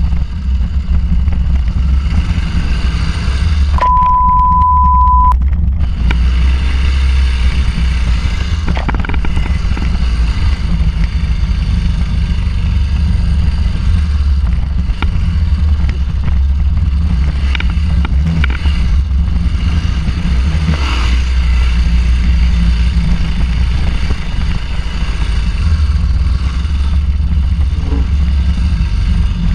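Suzuki DR800S Big's large single-cylinder engine running steadily as the bike is ridden over a dirt motocross track. A steady beep lasting about a second and a half sounds about four seconds in.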